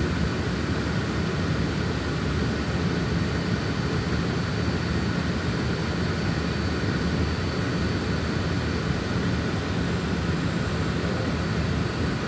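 Steady, unbroken engine drone with a low hum, holding an even level throughout.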